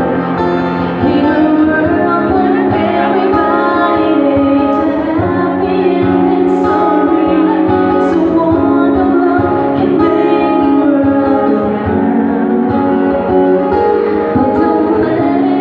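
Live music: a woman singing into a microphone to an acoustic guitar accompaniment, played through a PA speaker in a large atrium.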